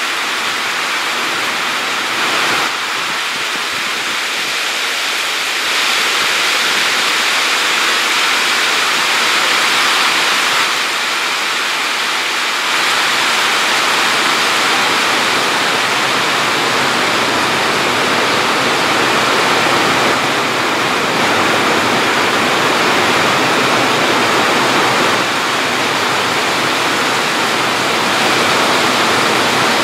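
A steady, loud rushing noise with no rhythm or distinct events, strongest in the upper-middle range, stepping slightly louder or softer a few times.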